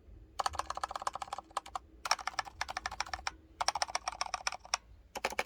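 Rapid typing on a Razer Phantom Edition 65% wireless mechanical keyboard with linear yellow switches: fast clattering keystrokes in four runs of about a second each, with short pauses between.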